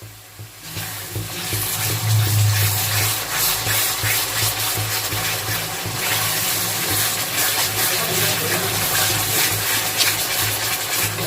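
A thick spiced masala of yogurt and ginger-garlic paste sizzling in a pan while it is stirred and scraped with a spatula, starting about half a second in, over a low steady hum.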